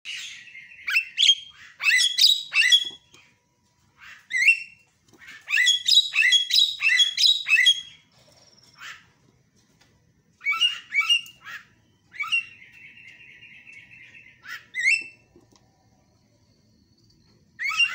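Javan myna (jalak kebo) singing in loud bursts of rapid harsh chirps and whistles, with one long buzzy rattle about two thirds of the way in and a few single calls near the end.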